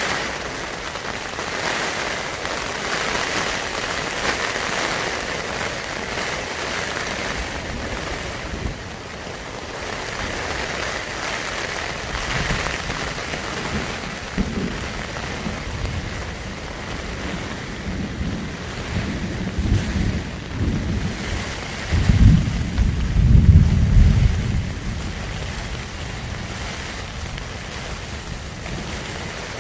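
Heavy rain in a thunderstorm, steady throughout, with low rolls of thunder in the second half; the loudest thunder comes about three quarters of the way through.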